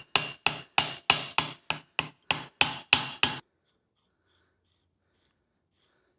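Hammer blows on metal, about three a second, each with a short ring, driving the gland into the bore of a hydraulic lift arm cylinder. The strikes stop about three and a half seconds in.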